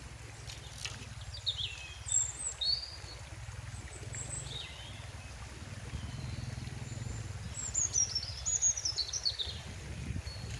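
Steady low rush of a fast-flowing river, with small birds chirping over it: a few short calls about two seconds in and a run of falling chirps near the end.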